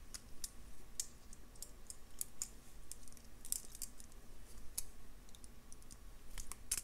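Faint, irregular clicking of small jewelry pliers and thin wire as the wire tail is wrapped around the base of a wrapped loop.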